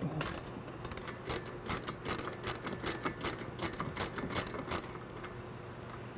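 Ratchet wrench with a 3/4-inch socket clicking in a quick run, about five clicks a second, as a bolt on a balance beam's movable plate is backed off. The clicking stops near the end.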